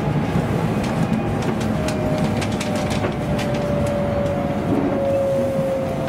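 JR West Special Rapid electric train running, heard from inside the passenger car: a steady rumble of wheels on rail with scattered clicks over rail joints. From about two seconds in, a motor whine sinks slowly in pitch as the train slows.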